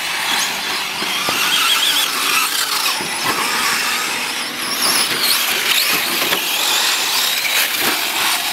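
Several 1/10-scale electric short course RC trucks racing on LiPo power, their brushless motors giving a high-pitched whine that rises and falls with the throttle, with scattered short knocks.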